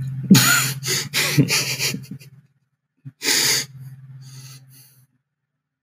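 A man laughing in breathy bursts with his mouth closed: a quick string of huffs over a low hum in the first two seconds, then one more burst a little after three seconds in.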